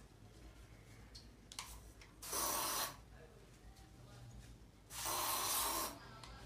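Aerosol deodorant can spraying in two short hissing bursts, one a little over two seconds in and a longer one about five seconds in, with a faint click before them.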